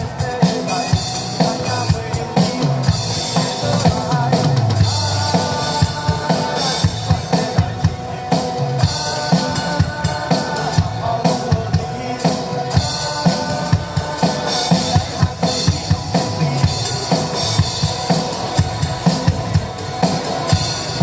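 Band music driven by a drum kit: bass drum, snare and cymbals keep a steady, hard-hitting beat under sustained pitched instruments.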